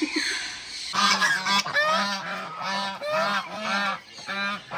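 A bird honking in a rapid run of short, goose-like calls, about three a second, starting about a second in.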